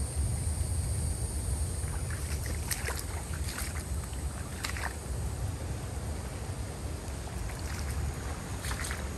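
Wind buffeting the microphone as a steady low rumble, with the rustle and squelch of footsteps through wet, flooded grass and ferns in two spells, about two to five seconds in and again near the end.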